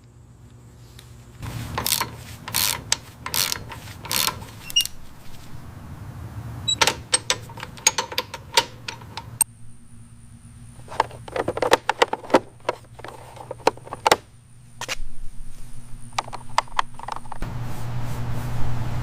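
Irregular clicks, clinks and knocks in clusters, over a low steady hum, with a faint high whine through the middle stretch.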